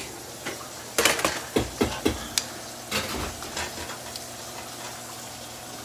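Kitchen utensils and containers knocking and clattering on the counter and pan, a quick run of knocks between about one and three and a half seconds in. Under them, a frying pan of jackfruit in coconut milk sizzles faintly and steadily.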